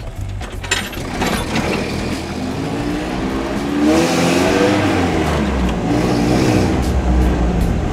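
1987 Toyota 4Runner's 22RE four-cylinder engine pulling the truck along, heard from inside the cab; it rises in pitch about three seconds in as the truck accelerates, then levels off. A few light clicks near the start.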